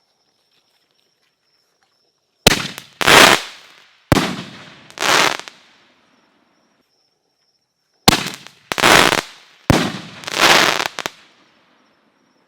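Four Season Fireworks Mega Mine canister shells firing from a mortar tube, in two groups about five seconds apart. Each shot is a sharp bang followed within a second by a louder, longer blast that fades away.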